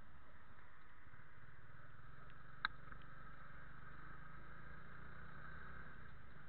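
Steady low background noise with a faint hum, and a single sharp click about two and a half seconds in.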